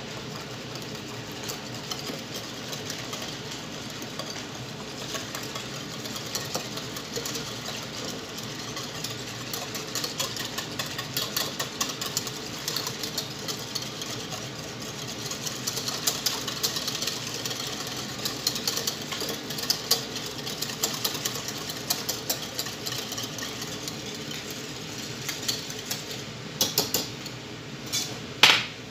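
Wire whisk beating a liquid in a ceramic bowl: a fast, steady run of clicks as the wires strike the bowl, with a few louder knocks near the end.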